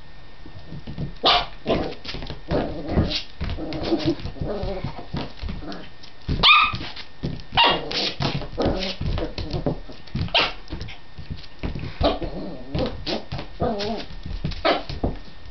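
Shetland sheepdog puppy giving many short, high-pitched barks and yips in bursts, in play at a chew bone, with short knocks in between.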